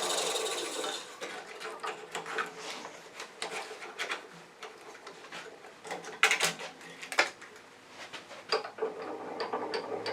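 A lathe's cutting and spinning noise fades out in the first second. Then come scattered small clicks and knocks as the parted-off plexiglass pieces and tools are handled, with the sharpest knocks about six and seven seconds in.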